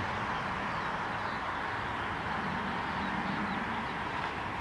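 Steady outdoor airfield ambience: an even, constant roar with a few faint, high bird chirps.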